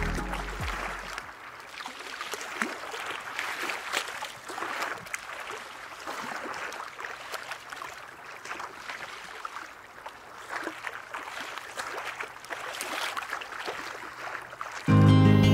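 Sea water lapping and sloshing, with many small splashes and trickles rising and falling in level. A low music note dies away in the first second, and music cuts back in loudly near the end.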